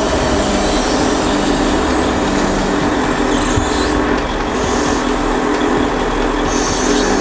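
Truck-mounted hydraulic timber crane working a log, its hydraulics and the truck engine running with a steady whine.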